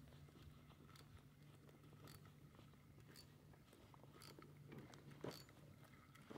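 Near silence: a faint steady low hum with a few faint, scattered clicks.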